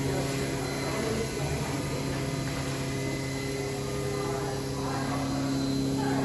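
Steady electrical hum of a Mini Melts ice cream vending machine, a few held low tones over a faint hiss, while its robotic arm lifts a cup from the freezer.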